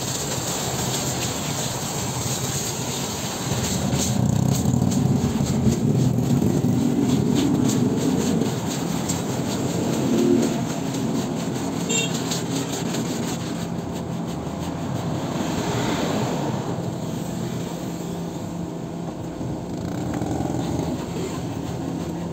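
Road traffic: motor vehicles going by on the street with a steady low engine hum. It swells in the middle and again about two-thirds through as vehicles pass.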